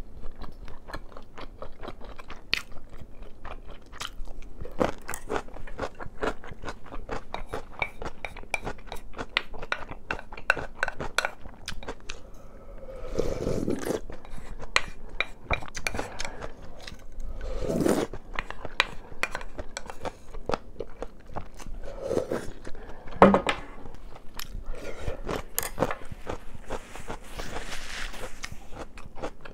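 Close-miked chewing and crunching of kkakdugi (cubed radish kimchi). Near the middle come a few fuller, louder swallowing sounds as broth is drunk straight from the bowl.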